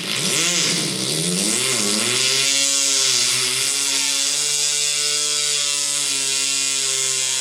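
Imitation of an old Homelite chainsaw: a buzzy, sputtering start whose pitch swoops up and down for about two seconds, then a steady running drone that steps up slightly in pitch about four seconds in.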